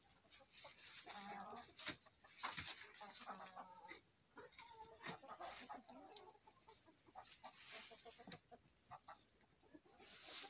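Hens clucking quietly, with scattered scrapes and knocks from a hand tool digging into the composted litter of the coop floor.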